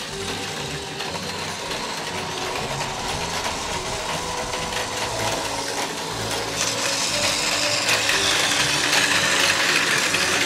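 Battery-powered Plarail toy trains running on plastic track: the steady whir of their small motors with the rattle of wheels on the rails, growing louder about two-thirds of the way through.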